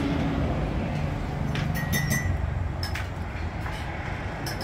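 A steady low rumble of shop background noise, with a few light clicks and clinks of plastic cups and utensils being handled, mostly from about one and a half seconds in.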